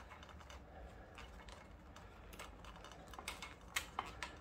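Faint, scattered light clicks and taps from gloved hands working a wiring cable in among the brake hoses under motorcycle handlebars, with a few sharper clicks near the end.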